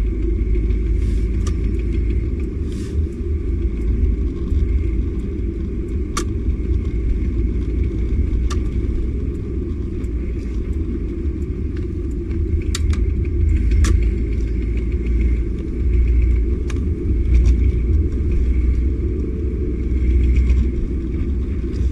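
Volkswagen Passat B3 driving, with a steady low rumble and irregular sharp knocks now and then. The knock comes from the left drive shaft under throttle; the owner traced it to a worn inner CV joint whose boot was torn.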